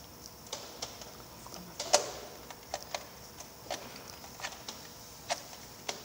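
Irregular sharp clicks and taps of small hard objects handled on a tabletop, one much louder about two seconds in.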